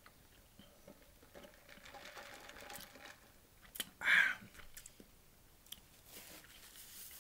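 Faint sipping of a drink from a fountain cup, then one short, loud exhaled vocal sound with the mouth open about four seconds in, with a few small clicks.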